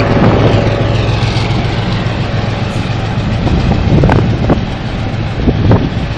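Freight train rolling past at close range with a steady low rumble. A whine falls in pitch during the first second or so, and a few sharp clacks come in the second half.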